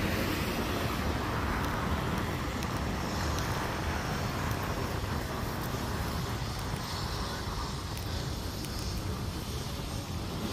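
Steady road traffic noise with a low rumble; a vehicle's sound swells and fades over the first few seconds.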